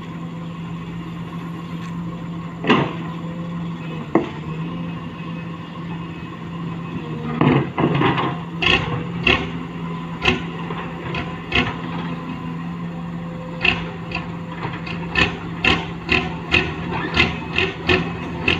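A new engine running with a steady hum. Over it come sharp knocks or taps, a couple at first, then irregular runs of them from about halfway on.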